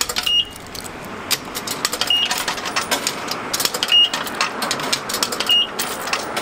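Quarters being fed one by one into a self-serve car wash coin box, clinking into the slot, with a short high beep from the machine four times as coins register. Steady background noise runs underneath.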